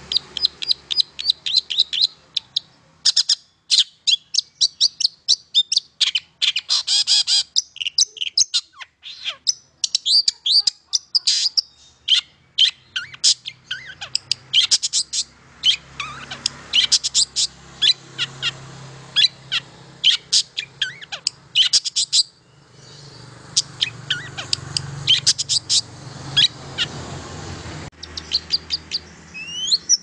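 Caged long-tailed shrike singing a long, fast run of sharp, high chirping notes in a vigorous full song, with one short break about three quarters of the way through.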